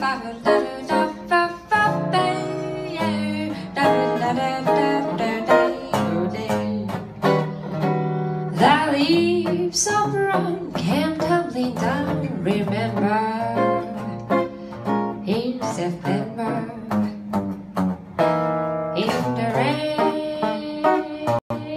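Jazz guitar solo: fast melody notes played over a steady line of bass notes and chords.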